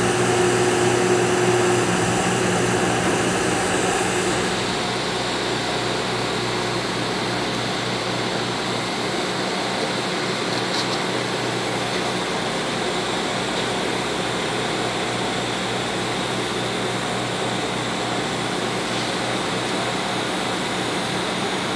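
TIG welding arc running a root pass on carbon steel pipe at about 190 amps: a steady hiss with a low electrical hum underneath, easing slightly about five seconds in.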